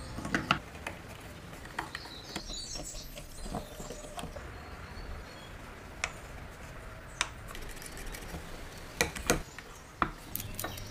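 Scattered light clicks and knocks as a small wooden box and its metal fittings are handled and set down on a wooden workbench, about ten sharp taps at uneven intervals, with a cluster near the end.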